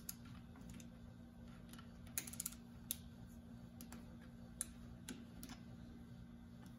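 Socket ratchet clicking as it tightens the bolt of a bolt-and-washer press that squeezes a polyurethane bushing into a shock absorber eye: a quick run of clicks a little over two seconds in, then single clicks spread through the rest, over a faint steady hum.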